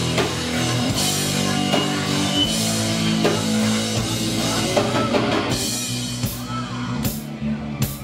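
Live heavy rock band playing: electric guitars and bass hold chords over a drum kit, with a cymbal crash about once a second. About six seconds in, the playing breaks into a few separate accented hits with gaps between them.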